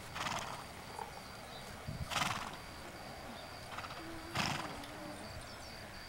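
Horse sounds: three short, noisy, breathy bursts about two seconds apart.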